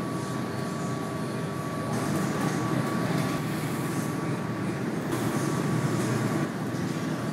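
Steady low roar of a glassblowing workshop's gas-fired furnace and fans running. A faint steady whine fades out about three seconds in.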